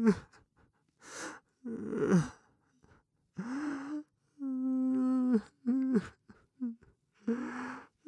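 A person crying: several gasping, sobbing breaths and, about halfway through, one drawn-out wail that breaks and falls in pitch, followed by short whimpering cries.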